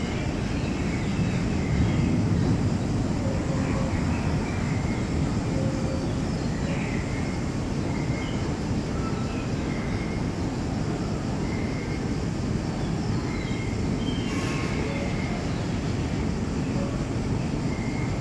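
A steady low rumble of moving walkways and the tunnel's air handling, with short bird-like chirps and whistles from a piped-in rainforest soundscape scattered over it. One brief, sharper sound comes about fourteen seconds in.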